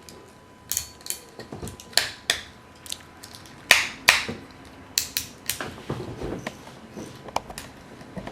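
Plastic and die-cast metal toy robot parts being handled and moved into position: a scattered series of sharp clicks, snaps and short scrapes as the lion's legs are transformed.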